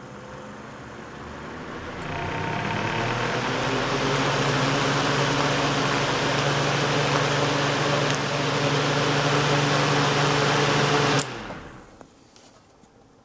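Vintage 1960s NuTone exhaust fan running: a steady rush of air over an electric motor hum, growing louder about two seconds in. Near the end it cuts off suddenly as the fan is switched off.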